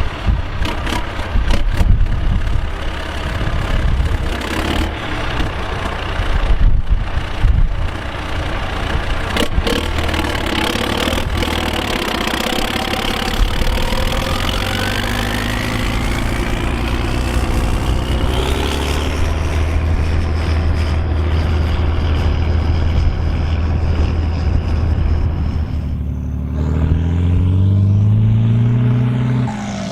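Volvo BM814 tractor's diesel engine running under load as it pulls a six-furrow plough, with a whine that rises in pitch through the middle. Near the end the engine note changes and climbs, as the engine speeds up.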